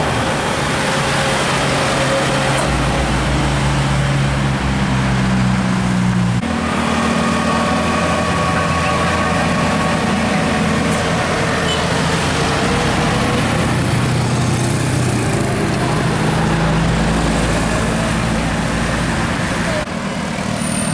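Heavy diesel vehicles, tour buses and trucks, running up a hill in road traffic. The engine note changes abruptly about six seconds in.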